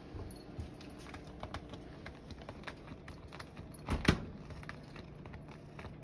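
Scattered light clicks and rattling taps, with two loud knocks close together about four seconds in.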